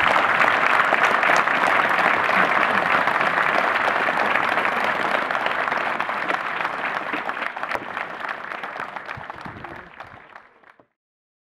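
Audience clapping after a song, thinning out and fading away to silence near the end.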